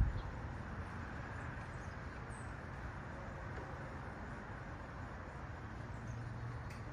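Outdoor unit of a 2004–06 Goodman heat pump running steadily in heat mode: a low compressor hum under the even rush of the condenser fan.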